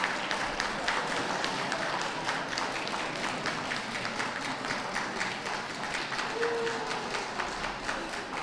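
Audience clapping steadily, with a brief, slightly falling tone about six seconds in.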